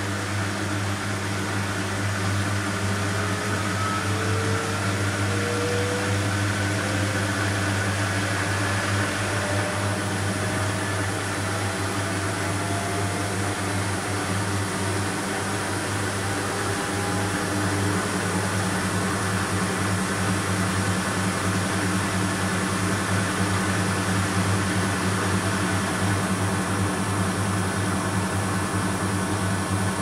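BEKO WMY 71483 LMB2 front-loading washing machine with a ProSmart Inverter motor, its drum speeding up into a spin. A steady hum carries a motor whine that rises slowly in pitch from a few seconds in until about halfway, then the machine runs on steadily at speed.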